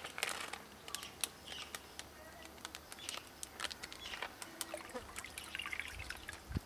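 Water trickling and pouring out of a plastic bag into a small tub pond, with faint crinkles and clicks from the plastic as the bag is tipped and handled.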